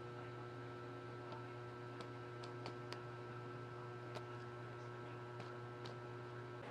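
Quiet room tone: a steady low hum with several faint, short clicks in the middle.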